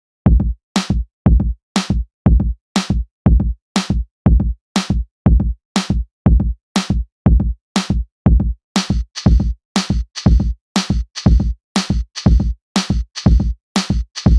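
Background music: an electronic drum-machine beat, a deep kick about twice a second, with a hissy high layer joining about nine seconds in.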